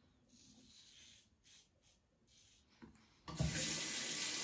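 A faint scrape of a safety razor through stubble, then, about three seconds in, a tap turned on and water running steadily into the sink to rinse the razor.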